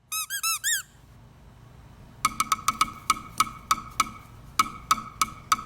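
A rubber squeaky toy squeaks four times in quick succession, each squeak rising and falling in pitch. About two seconds in, a steady clicking beat like a wood block begins: the start of background music.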